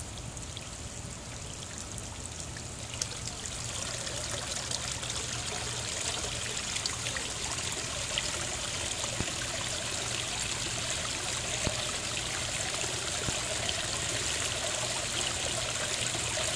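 Garden pond waterfall starting up after being switched back on: water trickling and splashing down the falls. The flow builds and grows louder over the first several seconds, then runs steadily.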